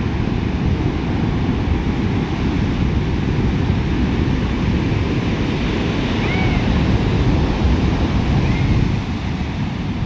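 Ocean surf breaking and washing up the shore in a steady rush, swelling a little from about seven to nine seconds in.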